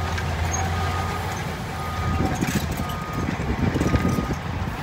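Loaded dump truck's diesel engine running as it backs up, with its reversing alarm giving short beeps about once a second.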